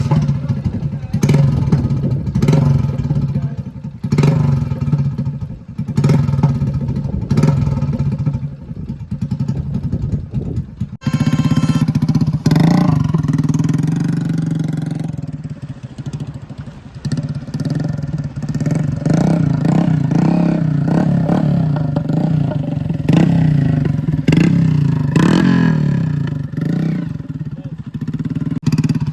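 Motorcycle engine revved through a newly fitted, custom-welded silencer, in repeated throttle blips about every second and a half, with a short break about eleven seconds in before the revving resumes.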